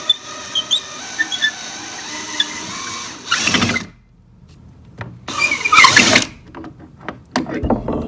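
Cordless drill turning slowly, driving a long screw-in eye hook into a wooden shelf board through a second eye hook held in its chuck, with short metal-on-metal squeaks as the hooks rub. A few seconds in come two short, louder bursts, then sharp clicks near the end.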